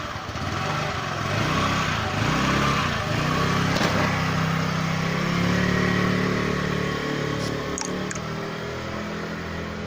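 Jialing four-stroke scooter engine pulling away, its revs climbing over the first few seconds, then running steadily and easing off a little near the end. The engine is running after a crankshaft bearing replacement.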